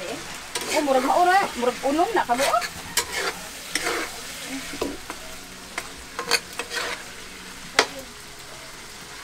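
Metal spatula stirring and scraping chopped meat in a wok over a wood fire, the food sizzling as it fries. The scraping is loudest in the first couple of seconds, then sharp clinks of the spatula against the pan come every second or so.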